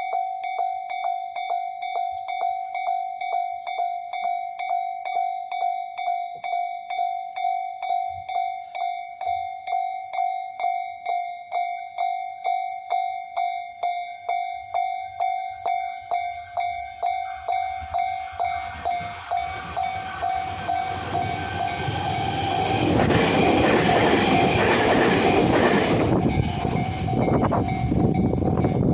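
Japanese railway level-crossing warning bell ringing in a rapid, steady 'kan-kan' rhythm. A train approaches from about halfway through and rumbles past the crossing, loudest near the end, while the bell keeps ringing.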